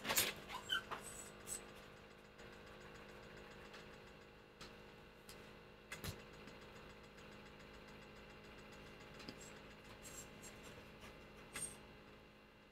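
Faint, steady mains-like hum of a small room, with a few sharp clicks and taps from handling something, the loudest about six seconds in and near the end.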